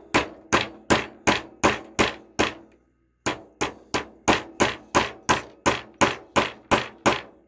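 Light, evenly paced hammer taps, about three a second, driving a new bearing into a Traxxas Pro 15 nitro engine's case. The taps pause briefly about three seconds in, then carry on as the bearing goes almost all the way in.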